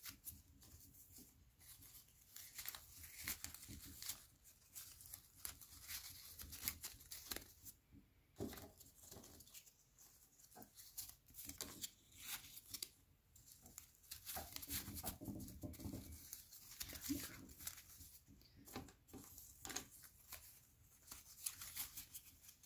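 Faint, irregular rustling and clicking of flattened cardboard strips from paper towel and toilet paper rolls being folded, bent and slid through one another by hand while weaving a basket.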